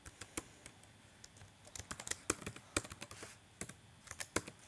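Typing on a computer keyboard: irregular key clicks coming in quick runs, with short pauses between them.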